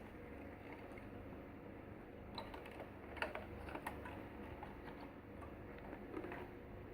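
Faint clicks and light taps over a low steady hum, clustered around the middle.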